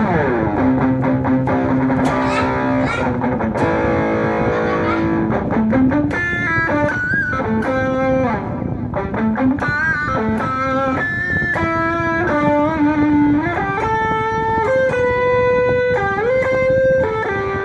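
Electric guitar played through a distortion pedal, giving a gritty overdriven tone. It opens with a downward slide into ringing chords, then moves about six seconds in to single-note lead lines with string bends and vibrato.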